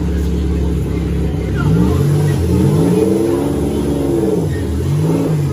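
Demolition derby cars' engines revving over a steady low engine rumble, several engine notes rising and falling in overlapping arcs.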